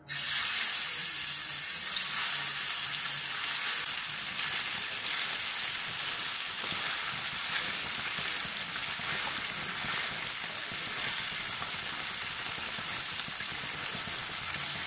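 Marinated soodai fish (small sardines) frying in hot oil on a flat dosa tawa: a steady sizzle that starts suddenly as the first fish go into the oil.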